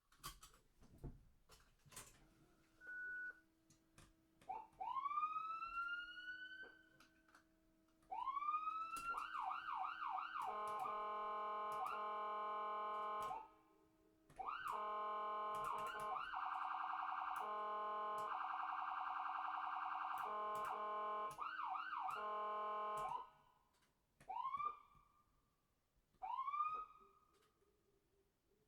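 Ambulance siren: single rising wails at first, speeding into a rapid series of sweeps, then long steady blasts of the emergency horn broken by short gaps, and a few short rising whoops near the end.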